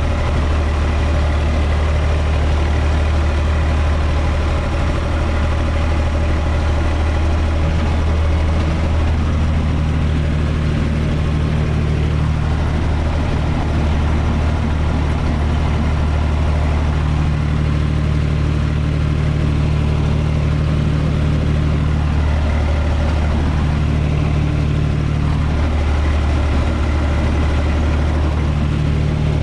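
UTB 445 tractor's diesel engine running steadily, heard from inside its cab, with a somewhat higher hum coming and going from about a third of the way in as the tractor drives on.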